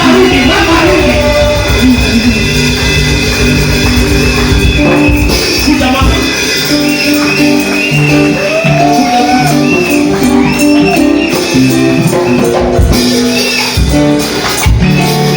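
Loud praise music with a steady beat and a repeating bass line.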